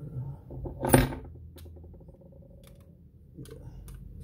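Small clicks and taps of a plastic folding angle gauge being handled with a steel rod, with one sharp, louder clack about a second in.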